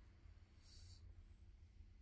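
Near silence: quiet room tone with a low hum, and two faint, brief scratching sounds just past half a second in and again a moment later.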